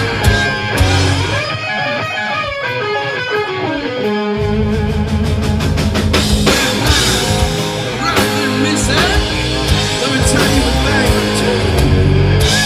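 Rock band playing an instrumental passage with guitar over bass and drums. About a second and a half in, the bass and drums drop out, leaving a falling guitar line alone. The full band comes back in about four seconds in.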